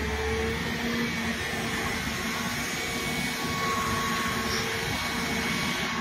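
Volvo EW160E wheeled excavator running steadily: an even whooshing engine and fan noise with a faint whine through it.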